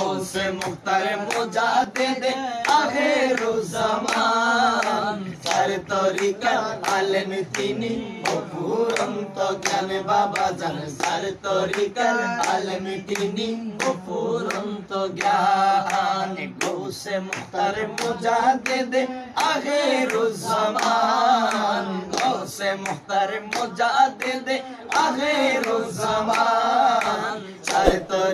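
A man singing a Bengali manqabat (devotional praise song) unaccompanied, with sharp hand claps keeping the beat.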